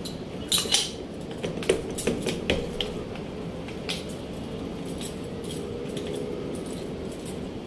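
Small steel parts of a JX-28 jet chisel, a pneumatic needle scaler, clinking and ticking against each other as they are handled and fitted together. A quick run of sharp clinks in the first three seconds, then scattered light ticks.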